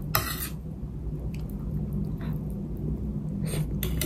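Chewing a mouthful of open-faced sandwich, while a knife and fork saw through crusty toast on a plate: a short scraping stroke near the start and more near the end.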